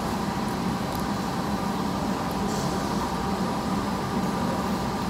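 Steady background hum and hiss of a large open hall's ambience, with a couple of faint clicks along the way.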